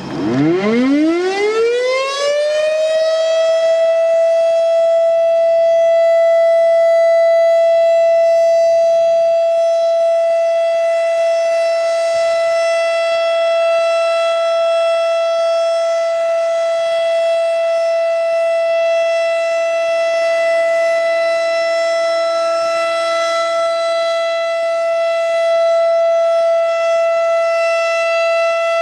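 Federal Signal Thunderbeam 12-port civil defense siren on a test, winding up from a low growl to a high steady tone over about three seconds, then holding that single high-pitched tone.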